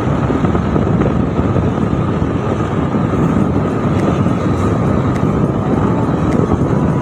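Steady road and wind noise of a vehicle travelling along a road, heard from on board.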